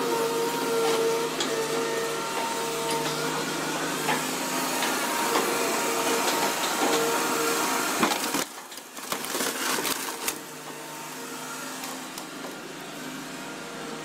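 Hydraulic scrap-handling excavator with an orange-peel grapple, its engine and hydraulics running with a steady whine, while scrap metal crunches and knocks under the grapple. About two-thirds through the sound drops quieter, with the whine still there as the grapple presses down on a car's roof.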